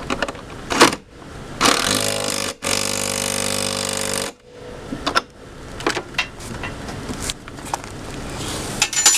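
Power drill running in two short bursts about two seconds in, driving a nut onto a fender-bracket bolt, with clicks and knocks of metal parts being handled before and after.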